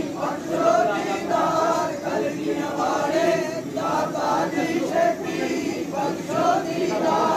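A crowd of Sikh pilgrims singing a Punjabi devotional chant together, many voices of men, women and children in unison, with a steady, unbroken sound.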